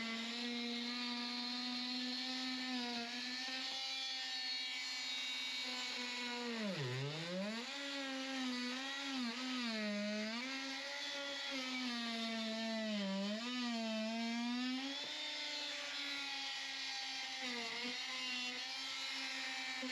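Small electric power tool motor running with a steady whine, its pitch sagging sharply several times and recovering as it bogs down under load while cutting, deepest about a third of the way in.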